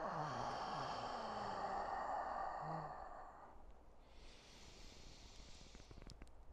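A man's long, audible exhale out through the mouth for about three and a half seconds, then a quieter, breathier inhale in through the nose for about two seconds.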